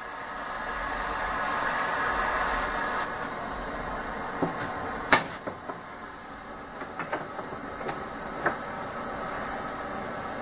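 Handheld propane torch burning with a steady hiss as it heats the end of a 6061 aluminum tube, a little louder in the first few seconds. A few light knocks and clicks sound over it, the sharpest about five seconds in.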